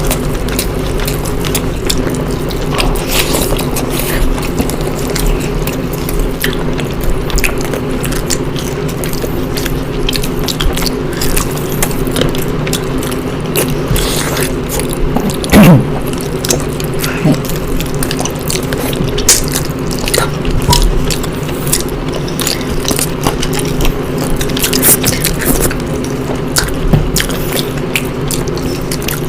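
Close-miked eating sounds of people eating egg curry and rice: irregular chewing and mouth clicks, many quick clicks in a row, over a steady low hum, with one louder knock about halfway through.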